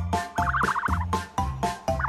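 A turkey gobbling once, a quick warbling rattle, over background music with a steady beat.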